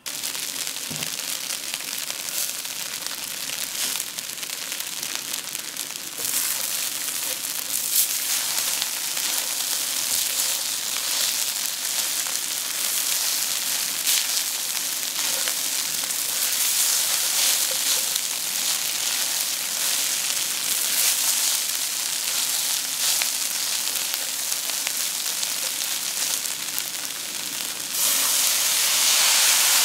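Fried rice with tofu, carrot and peas sizzling in a hot stainless steel wok, with occasional scrapes and taps of a spatula as it is stirred. About two seconds before the end the sizzle jumps louder as light soy sauce is poured into the hot pan.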